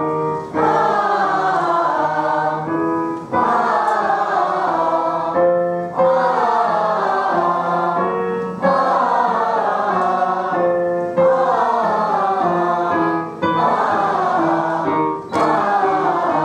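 A group of voices singing a vocal warm-up together on an open 'ah' vowel, stepping from note to note. They sing in phrases of two to three seconds, with a short break for breath between each phrase.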